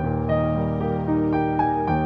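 Background piano music, a slow melody of sustained notes.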